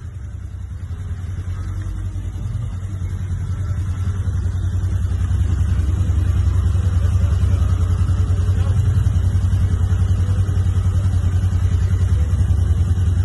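Pickup truck engine running with a deep rumble, building louder over the first five seconds or so and then holding steady.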